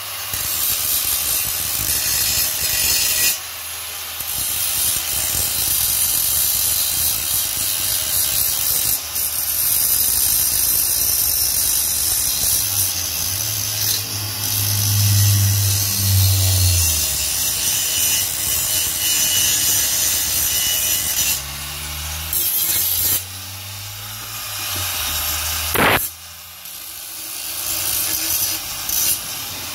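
Steady scraping and rubbing of a hand tool as a part is cleaned up before painting, broken by a few short pauses. A low hum rises and fades about halfway through.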